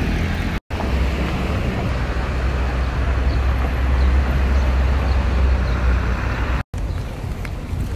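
Steady city street traffic noise, with a low rumble that swells in the middle. The sound cuts out for an instant twice.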